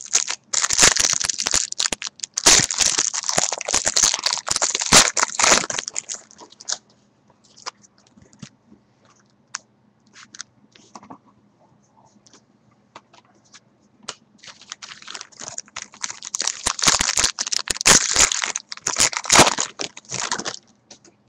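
Trading-card packaging crinkling and tearing as it is ripped open, in two long bouts with scattered light clicks and taps between them.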